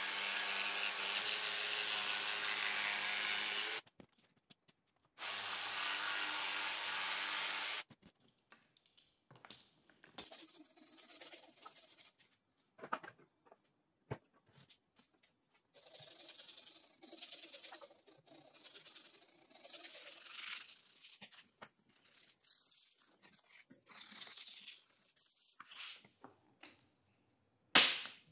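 Cordless jigsaw cutting a thin sheet for a frame, running steadily in two stretches of a few seconds that stop about 4 seconds in and again near 8 seconds. Then come quieter, irregular rubbing and scraping sounds of the cut-out frame being worked on the bench. A single sharp knock comes near the end.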